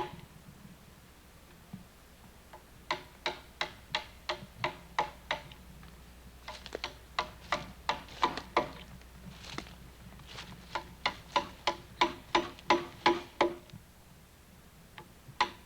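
Hammer driving a chisel into a log to cut out a corner notch. It comes in three runs of sharp strikes, about three a second with short pauses between the runs, and each strike rings briefly.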